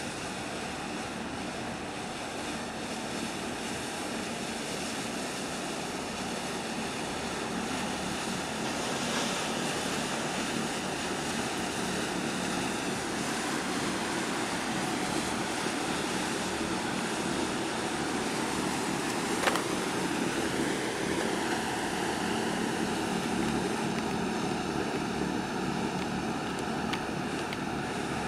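Steady low drone of ship engines passing close, with a wash of water and wind noise, growing a little louder partway through. A single sharp click about two-thirds of the way through.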